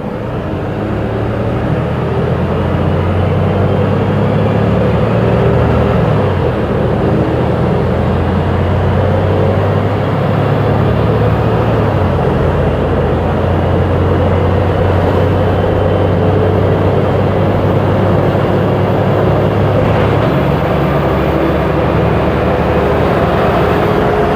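Volvo B290R city bus with a Voith automatic gearbox driving under power. The engine grows louder over the first couple of seconds, then runs steadily, its note shifting in steps a few times as the automatic gearbox changes.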